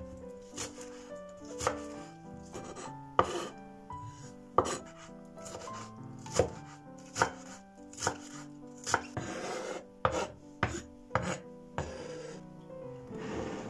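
Chef's knife chopping green onions on a wooden cutting board: single sharp knocks of the blade on the wood, about one a second, coming faster in the last few seconds.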